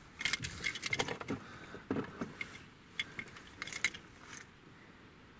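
Quick, irregular clinking and jangling of small hard objects handled close by, with a couple of duller knocks among them. It lasts about four seconds and stops.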